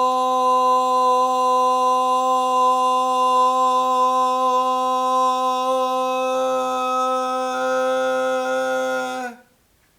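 A man's sustained vocal toning, one long hum-like note held at a steady pitch, with the overtones shifting a little in the last few seconds. It stops abruptly about nine seconds in.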